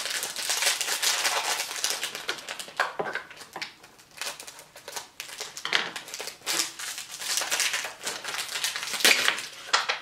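Aluminium foil wrapping being crinkled and pulled open by hand, in uneven spells of crackling and rustling, loudest near the end.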